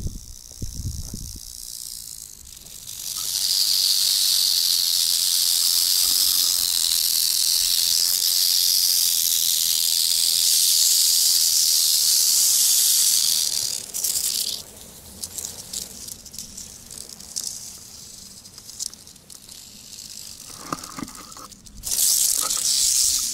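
Rattlesnakes buzzing their tail rattles, the defensive warning. A loud, steady high-pitched buzz starts about two and a half seconds in and holds for about ten seconds, then breaks into short intermittent bursts, with another loud burst near the end.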